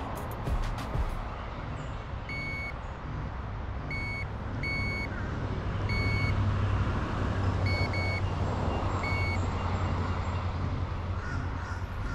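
About seven short, high electronic beeps at one fixed pitch, irregularly spaced, some in quick pairs, over a steady low rumble.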